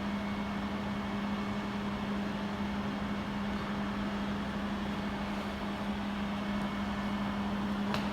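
Jewelry YAG laser welding machine running just after power-on, a steady hum with one strong low tone over even noise. A single short click near the end.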